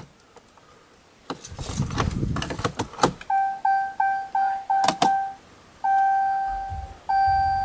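Keys jangling and the key being worked in the ignition of a 2016 Ram 2500, then the dashboard warning chime sounding: a run of quick beeps, about three a second, followed by longer chimes of about a second each.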